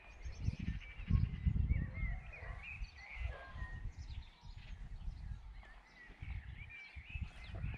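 Wind buffeting the microphone in uneven gusts, with small birds chirping and singing in the background.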